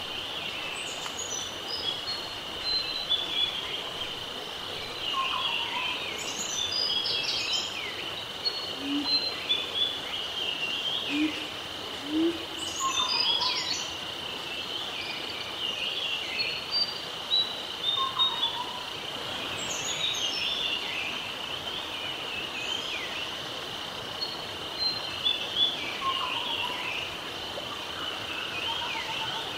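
Birdsong ambience: several birds chirping with quick falling whistles over a steady high hum, the same pattern of calls coming round about every six and a half seconds.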